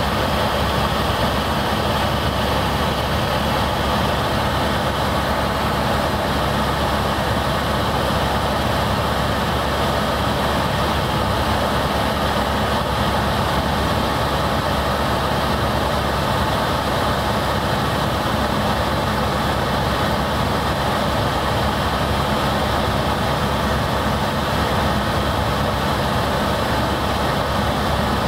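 Helicopter in level flight heard from inside its cabin: the turbine engine and rotors make a steady, loud drone with a low, even hum.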